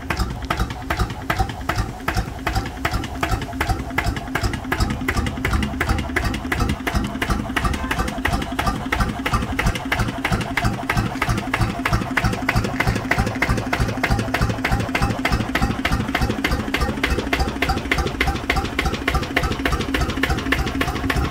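Lister JP1 (CS 9-1) single-cylinder, water-cooled stationary diesel engine running steadily, its exhaust beating in an even, regular rhythm.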